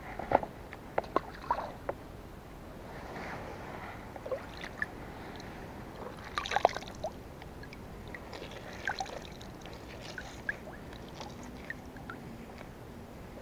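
Hands squeezing and kneading a wet ball of bread bait, with scattered small wet squelches and clicks that cluster near the start and again about six seconds in.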